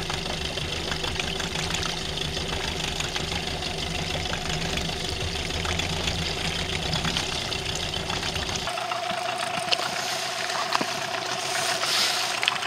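Outboard motor on an inflatable boat running steadily, with wind and water noise as the boat moves across the lake. About nine seconds in, the sound changes suddenly: the low rumble drops away and a thinner, higher steady whine carries on.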